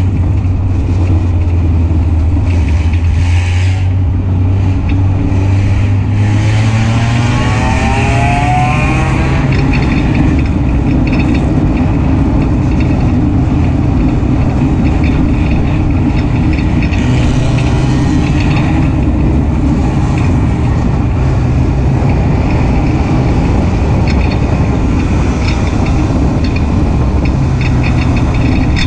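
Race car's engine running hard, heard on board a WISSOTA Hornet dirt-track car. About a quarter of the way in, the engine note climbs steadily as the car accelerates, then holds at a steady pitch.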